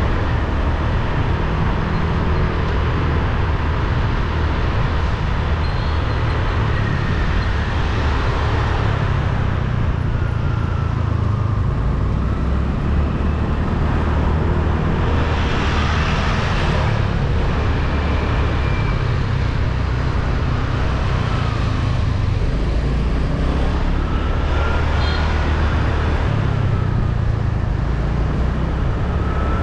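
Motorbike riding through city traffic: steady engine and road noise under a heavy low rumble, with faint engine pitch rising and falling a few times as the bike and nearby vehicles speed up and slow down.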